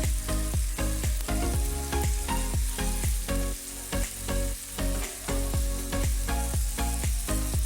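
Chopped zucchini, cauliflower, bell pepper and onion sizzling in a frying pan as they are stirred, the last of the water cooking off.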